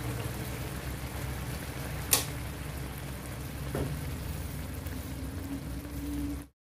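Food sizzling in a frying pan, a steady crackling hiss, with a sharp click about two seconds in and a fainter one near four seconds; it cuts off suddenly near the end.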